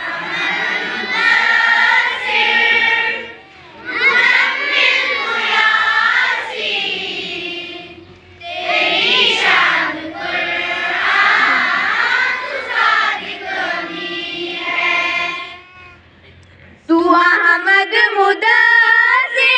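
A group of schoolchildren singing an Urdu prayer song together in unison, phrase by phrase with short pauses between lines. Near the end the singing comes back louder and clearer, as if led by a nearer voice.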